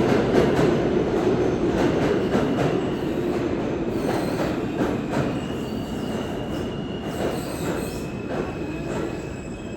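New York City subway train running through the station and slowing, wheels clicking over rail joints with a steady rumble and thin metallic wheel squeal; the noise slowly dies down as it brakes.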